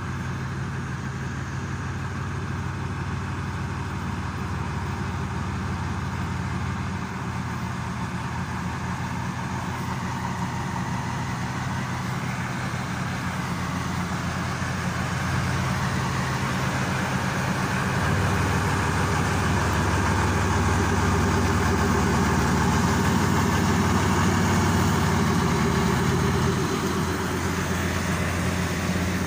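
SM30 diesel shunting locomotive's engine running as the locomotive moves slowly past with its train. The low engine hum shifts in steps and grows louder as it draws near, then eases a few seconds before the end.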